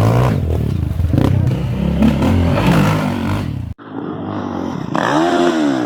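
Off-road trail motorcycle engines revving hard, with some clatter. The sound cuts off abruptly about four seconds in, then an engine comes back, its pitch rising and falling.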